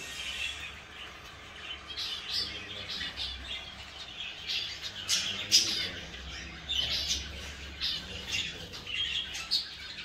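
A flock of small cage birds chirping and squawking together, short high calls overlapping throughout, with one louder call about five and a half seconds in.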